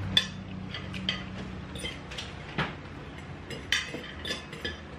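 Irregular sharp clicks and clinks of tableware and shellfish shells handled while eating slipper lobsters, about a dozen in all, over a low hum that fades out in the first two seconds.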